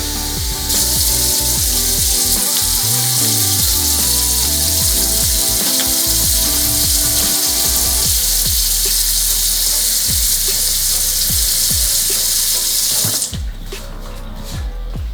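Vacuum cleaner running with a steady, loud hissing rush. It cuts in about a second in and stops suddenly near the end, over background music with a steady beat.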